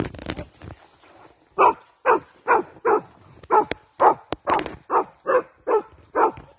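A boar-hunting dog barking steadily and repeatedly, about two barks a second, starting about a second and a half in.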